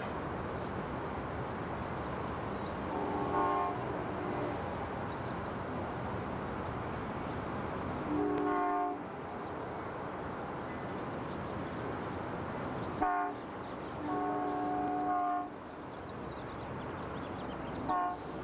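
Amtrak locomotive's multi-chime air horn sounding a long, a long, a short and a long blast, the pattern of the grade-crossing signal, with one more brief toot near the end, over the steady rumble of the moving train.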